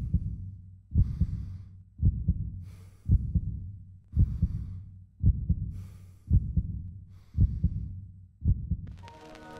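Heartbeat sound effect: slow, even double thumps about once a second, nine in all. Near the end a sustained chord of music fades in over the last beat.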